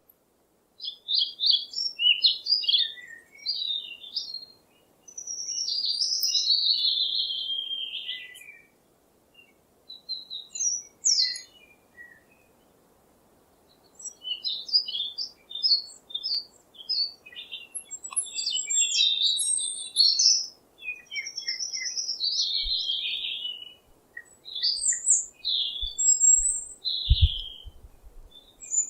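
Songbirds chirping and singing in quick high-pitched phrases and trills, coming in clusters with short pauses. A few brief low thumps come near the end.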